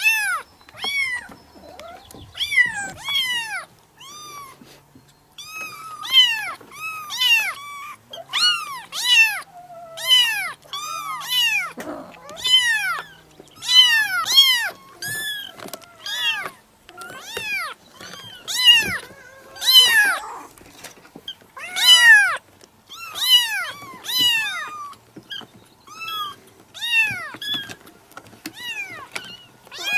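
Several kittens meowing over and over: high-pitched mews that rise and fall, following one another in quick succession and often overlapping, with hardly a pause.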